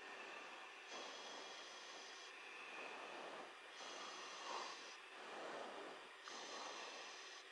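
Faint, steady hiss from a chase aircraft's cockpit intercom feed, with soft swells of noise that rise and fall every second or so.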